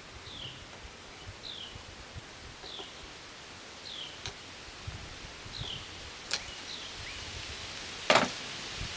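A bird repeating a short falling chirp about once a second, with two light clicks mid-way and a loud sharp knock near the end.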